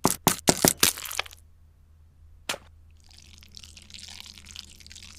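A quick run of about five sharp cracks, like something being broken apart, then a single crack a second later and a faint crackling afterwards.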